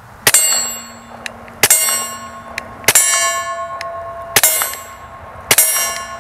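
Taurus TX22 .22 LR pistol fired five times at a slow, steady pace. Each sharp shot is followed by the clang of a hanging steel target ringing and fading.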